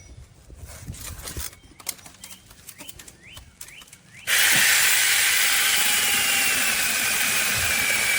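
Faint handling clicks and rustling, then about four seconds in a cordless mini electric chainsaw starts suddenly and runs at full speed with a steady high whine from motor and chain, cutting wood.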